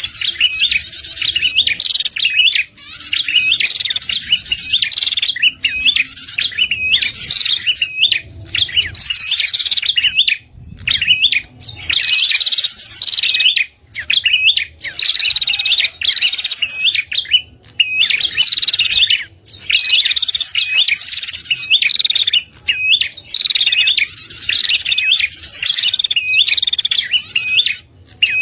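Prenjak (prinia) calls from a bird-lure recording: quick hooked chirps run together with buzzy trills, repeated phrase after phrase with brief breaks. The track is used to draw in wild prenjak.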